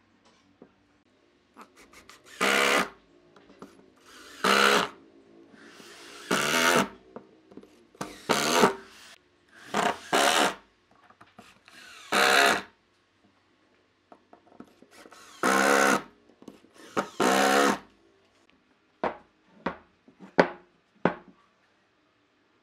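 Cordless impact driver driving wood screws into wooden boards in a run of short bursts, about nine, each under a second, followed by a few quicker blips near the end.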